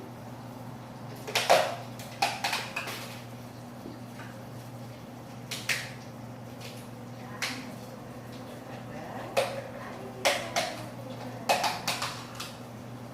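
A cat eating from a food dish: irregular clinks and crunches come in short clusters every second or few, over a steady low hum.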